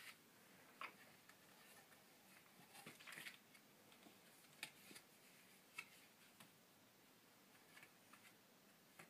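Near silence with a few faint, scattered clicks and soft taps: a toddler handling and turning the stiff cardboard pages of a board book.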